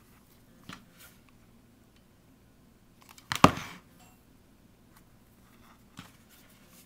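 Quiet handling of craft materials with a few light clicks, and one loud, sharp knock about halfway through.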